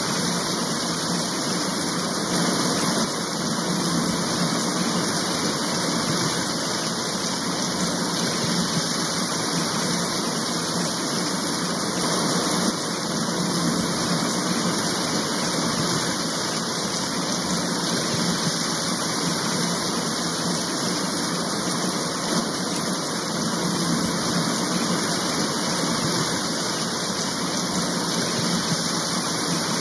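Steady rain, an even hiss of falling water with no single drops, thunder or other events standing out.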